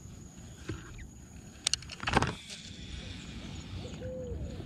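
Baitcasting rod and reel being handled close to the microphone: two sharp clicks a little over a second and a half in, then a louder knock and rustle, over a steady high-pitched background hum.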